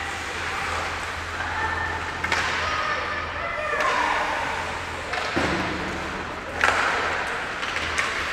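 Ice hockey play in an echoing rink: skates scraping the ice, with sharp knocks of sticks and puck against the boards a few times and occasional shouts from players.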